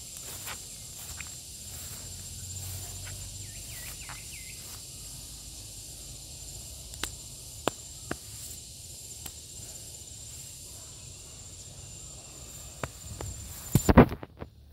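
A gareng pung cicada sings a steady, high-pitched buzz that cuts off suddenly near the end, at the moment of a loud crackle of disturbed plants. Footsteps and snapping twigs sound through the undergrowth.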